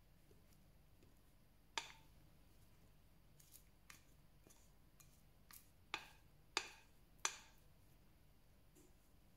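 Sharp clinks and taps of a glass mixing bowl as apple batter is poured and scraped out of it with a spatula into a metal springform pan. One loud clink comes about two seconds in, a few fainter taps follow, and three loud clinks come close together in the second half.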